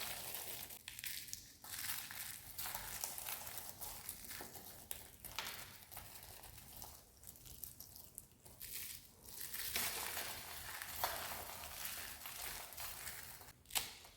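Dry soap being crushed and crumbled, a steady crisp crunching and crackling made of many small sharp snaps, with a few brief lulls.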